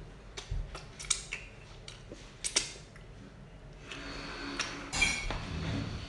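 Eating sounds: scattered sharp clicks and taps of fingers picking at fried fish on a plate, then chewing and mouth noises from about four seconds in, with a couple of louder clicks near the five-second mark.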